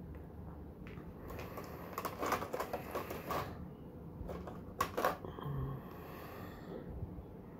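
Small plastic figure parts and a clear plastic blister tray being handled: a flurry of light clicks and rattles, then a few sharper clicks about five seconds in.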